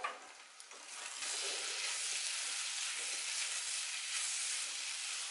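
Amla (Indian gooseberry) pieces with ginger and green chillies sizzling steadily in a wok on a low flame while a spatula stirs them. The sizzle comes up about a second in, after a short sharp sound at the start.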